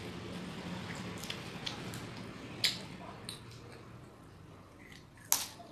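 Wet mouth sounds of a child eating rice and curry with his hands: chewing and sucking food off his fingers, with small clicks throughout. Two sharp smacks stand out, one about two and a half seconds in and a louder one near the end, over a low steady hum that fades.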